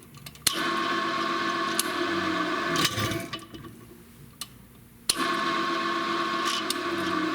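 Drill press switched on with a click, running steadily for a couple of seconds, then switched off and winding down, done twice. The countersink cuts as the spindle coasts to a stop, a trick to get rid of countersink chatter.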